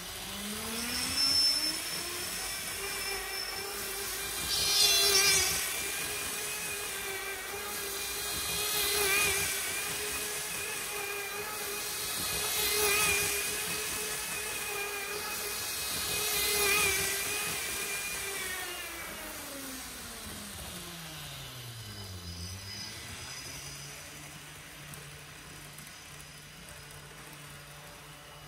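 The ESU LokSound 5 sound decoder of a Kato N-gauge TGV Sud-Est model plays electric traction-motor whine through its small speaker. The pitch rises as the train speeds up, then holds steady while the loudness swells every four seconds or so. Near the end it falls away as the train slows, settling to a low steady hum.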